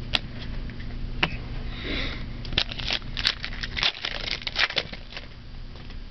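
Hands handling trading cards and their pack: a few single clicks, then a busy run of crisp crackles and clicks from about two and a half to five seconds in.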